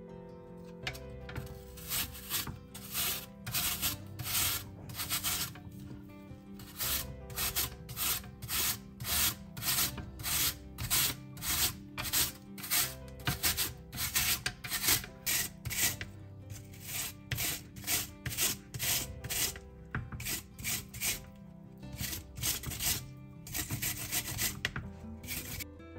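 Peeled apple rasped on a handheld flat grater in quick, even strokes, about two a second. The strokes pause briefly once and stop just before the end, over soft background music.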